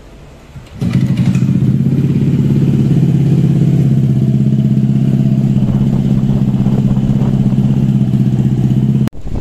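Honda PCX160 scooter's single-cylinder engine with an aftermarket full exhaust, running steadily at idle with the CVT cover off, its drive belt and variator pulley spinning. It comes in abruptly about a second in and stops suddenly near the end.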